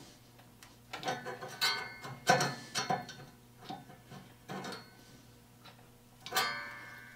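Hand-held saw set squeezed onto a pruning saw's teeth one tooth at a time to set them: a string of about eight or nine sharp metallic clicks at uneven intervals. The steel saw plate rings briefly after some of them, longest after the click near the end.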